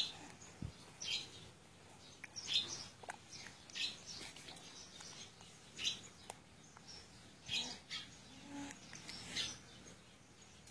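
A bird chirping: short, high chirps every second or two.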